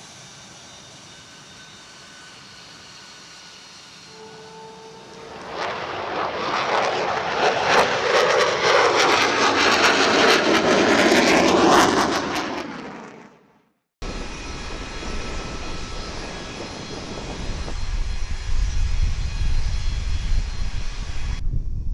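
Jet fighter flyby: engine noise builds to a loud pass with falling pitch as it goes by, then fades out. After a brief break, a second stretch of jet engine noise with a heavy low rumble.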